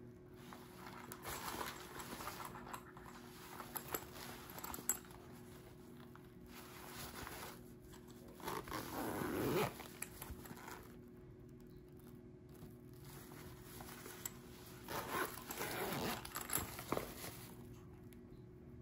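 Zippers of an Under Armour Loudon crossbody bag being pulled open, with rustling and handling of the bag's fabric and straps. The loudest zip comes about halfway through, and another stretch of zipping and rustling comes near the end.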